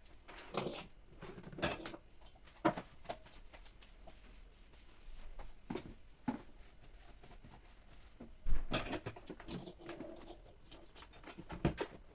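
Scattered clicks and knocks of household items being handled, with a louder clatter about eight and a half seconds in.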